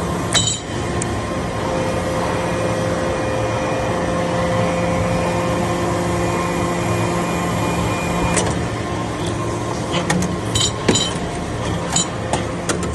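Metal shavings baler running: a steady machine hum with several held tones, joined by sharp metallic clinks and ticks in the last few seconds.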